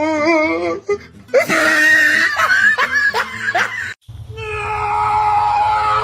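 A person laughing excitedly, the voice wavering and pulsing. After an abrupt cut about four seconds in, music with long held notes.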